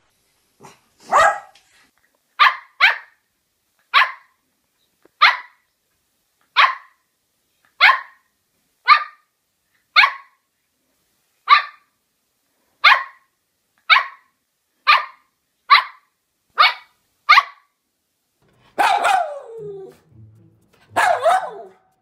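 Poodle barking in a run of sharp single barks, about one a second, then two longer barks near the end whose pitch drops away at the tail.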